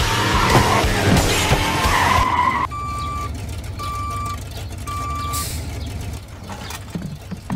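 A peanut-shaped vehicle skids along with clattering as it knocks over trash cans. Then three evenly spaced high electronic beeps, about a second apart.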